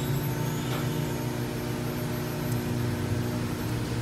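A steady, low engine hum that holds one pitch throughout.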